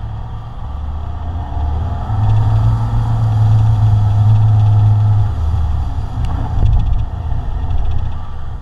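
Ford Ranger 4WD engine running as the truck drives slowly along a sandy dirt track, with a steady low rumble that swells for a few seconds in the middle. A single sharp knock comes about six seconds in.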